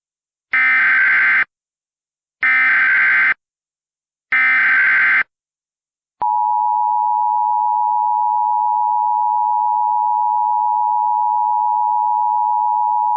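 Emergency Alert System header: three one-second bursts of SAME digital data tones, then, about six seconds in, the steady EAS two-tone attention signal (853 and 960 Hz sounding together).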